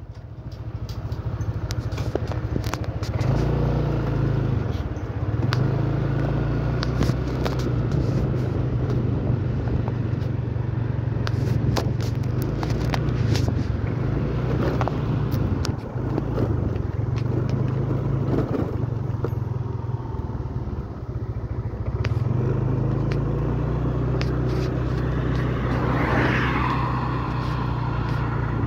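Small motorcycle engine running as it pulls away and rides along a road, speeding up about three seconds in, easing off twice in the middle and picking up again, with scattered clicks and knocks over the top.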